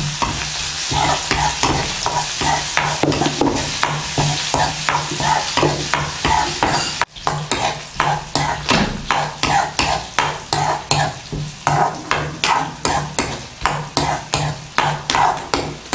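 A spatula stirs and scrapes a tempering of garlic, ginger, green chillies, dried red chillies and curry leaves frying in coconut oil in a metal kadai, over a steady sizzle. The scraping strokes come two or three a second and break off briefly about seven seconds in.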